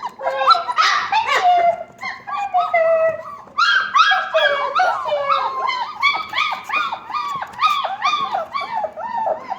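Young puppies whining and squealing together in high-pitched, overlapping cries. From about three and a half seconds in, a quick run of short rising-and-falling yelps follows, two or three a second.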